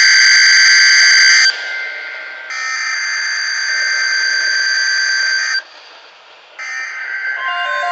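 Emergency Alert System SAME header data bursts from NOAA Weather Radio, a loud harsh digital buzz, announcing a tornado watch. One burst ends about a second and a half in, a second runs for about three seconds with a short gap either side, and a third starts near the end. Just before the end a steady alert tone begins.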